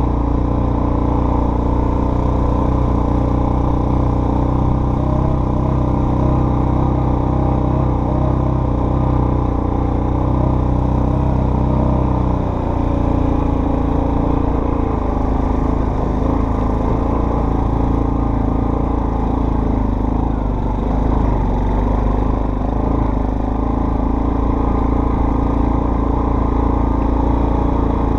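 Off-road vehicle engine running steadily and loudly under way. Its low note changes about twelve seconds in.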